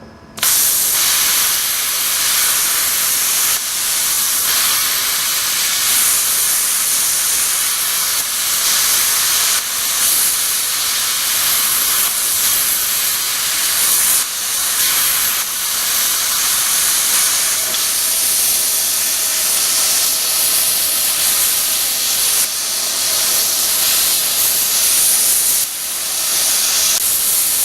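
Hypertherm Powermax45 plasma cutter arc at 30 amps in expanded metal mode, hissing steadily as it shaves the heads off frame rivets. The hiss starts abruptly a moment in and holds with brief small dips.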